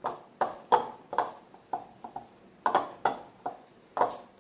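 Steel spoon knocking and scraping against a cut-glass bowl while mixing shrimp into a thick masala and cornflour coating. About a dozen short clinks come at roughly three a second, some in quick pairs.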